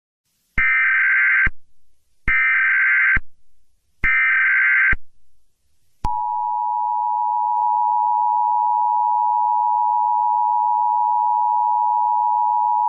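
Emergency Alert System broadcast tones: three short bursts of the SAME digital header, about a second each with short gaps, then from about six seconds in the steady two-tone EAS attention signal.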